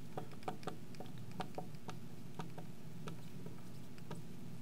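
Marker tip tapping on a glass lightboard while words are written: irregular light ticks, a few a second, thinning out in the second half.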